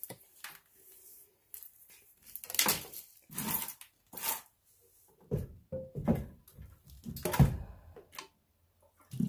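Handling noise as a Ridgid 1/3 hp submersible sump pump is lowered by its metal handle into the sump pit: scraping and rustling at first, then several dull knocks and bumps in the second half as the pump and its pipe settle against the pit.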